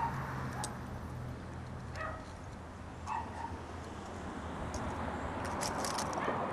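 Three short animal calls, about a second apart, over outdoor background noise, with a low steady hum for the first two seconds.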